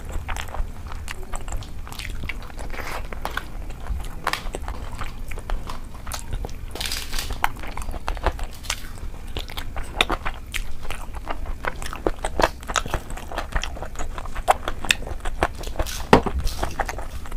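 Close-miked eating: chewing and lip smacking with many short, crisp crunches and clicks throughout.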